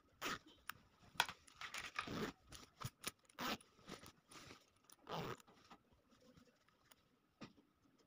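Quiet handling sounds of a jacket and its coil zipper: short irregular rustles of fabric with a few sharp clicks from the zipper slider.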